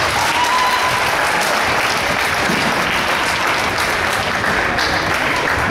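Spectators applauding in a gymnasium, a dense steady clapping that runs on without a break.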